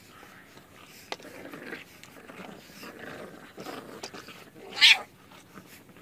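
A cat gives one short, sharp, high cry about five seconds in, after some quieter scattered noises.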